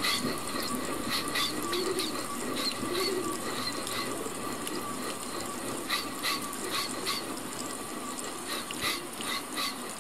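Mouth-made sound effects for a railway station scene: a steady hiss with a faint steady tone running under it, broken by scattered short clicks at irregular intervals and a few soft low wavering sounds.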